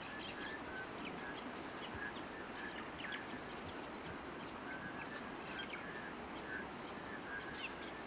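Faint countryside ambience: a steady hiss with many scattered short bird chirps and cheeps throughout.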